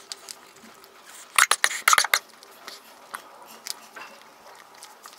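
Ballpoint pen writing on notebook paper: a quick run of sharp scratchy strokes a little over a second in, with faint ticks of pen and paper before and after.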